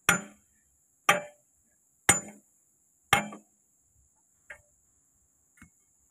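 Hammer striking steel pins and linkage on an excavator bucket: four hard, ringing blows about a second apart, then two light taps, as a bucket pin is driven during a bucket change.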